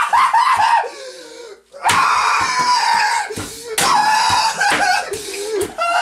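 High-pitched screaming and wailing voices, broken by several sharp smacks as the orange is hacked into pieces.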